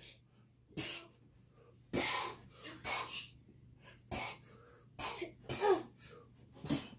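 Short grunts and huffs of effort, about seven in quick succession with brief gaps between them, from a man and a boy play-wrestling.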